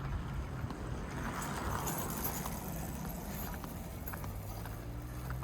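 Footsteps walking on a road, with faint irregular knocks over a low steady hum.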